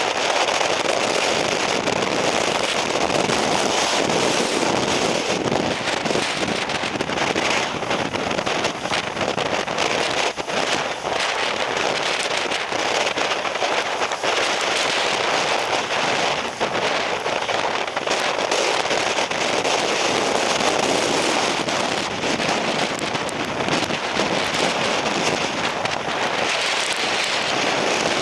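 Typhoon-strength wind and rain buffeting the microphone: a dense, steady rush with constant crackling.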